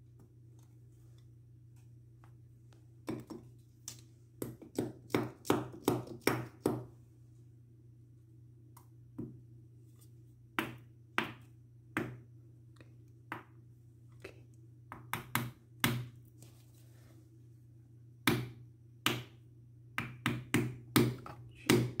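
A claw hammer tapping small wooden wedges into the sides of an electrical outlet box to hold it tight in the wall. A quick run of a dozen or so taps comes a few seconds in, then scattered single taps and pairs.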